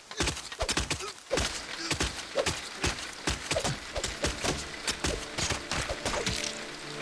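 A rapid, irregular run of thuds and knocks, several a second, with short cries between them, over the hiss of heavy rain. Near the end the knocks stop and soft music comes in under the rain.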